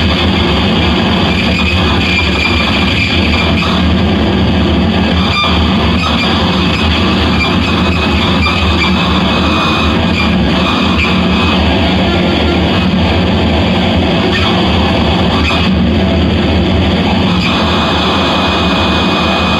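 Harsh noise music: a loud, dense wall of distorted noise that runs on without a break.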